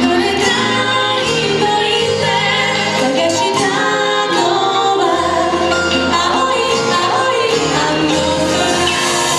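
Music: a song, a voice singing over instrumental backing with sustained bass notes that change every second or two.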